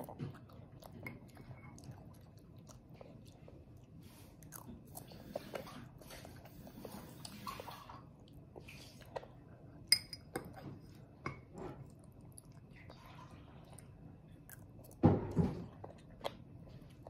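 A toddler eating spaghetti with a fork: soft chewing and slurping of noodles, with scattered light clicks of the fork against the bowl. A louder short burst of noise comes near the end.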